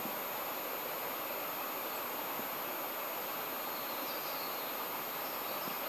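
Steady outdoor background of insects buzzing, an even hiss with no distinct events and a faint high steady tone above it.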